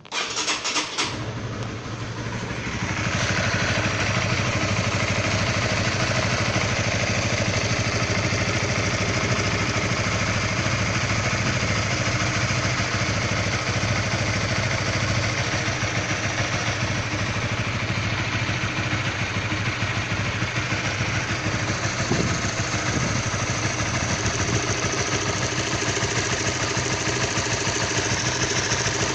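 Honda CB150R single-cylinder motorcycle engine starting at the very beginning, then idling steadily with a rough, knock-like sound. The owner says this knocking shows when the engine is cold, with everything still factory stock.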